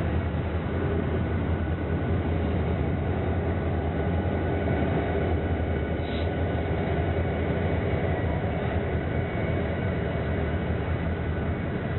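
A train running by with a steady low rumble.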